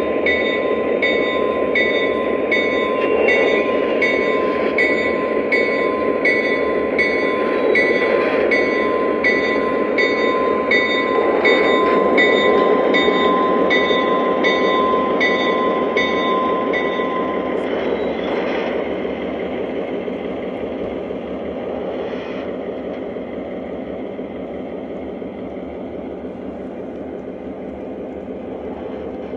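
Lionel Legacy O-gauge NW2 diesel switcher running with its onboard diesel engine sound and its wheels rolling on the track, growing fainter as it moves away. A pulsing ringing tone, about one to two strikes a second, plays over the engine and stops about two-thirds of the way through.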